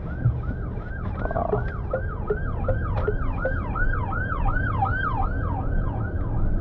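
Emergency-vehicle siren in a fast yelp pattern: a falling wail repeated about three times a second. It grows louder toward about five seconds in, then eases off, over the low rumble of the car's road noise.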